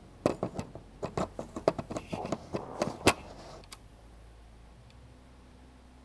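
A rapid, irregular run of sharp clicks and clinks, about four a second, stopping after about three and a half seconds and leaving a faint steady low hum.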